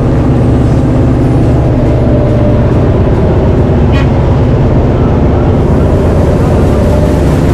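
Loud, steady drone of a jump plane's engine and propeller heard from inside the cabin, a heavy low rumble with a steady hum above it. A short click about four seconds in.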